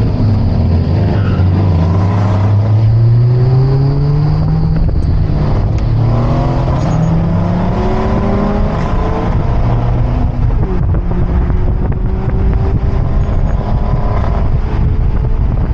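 Car engine accelerating hard on a winding road, its pitch climbing and dropping back at gear changes about six and about ten and a half seconds in, over a steady rush of road and wind noise.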